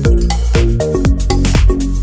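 Electronic dance music with a steady beat and pitched synth notes.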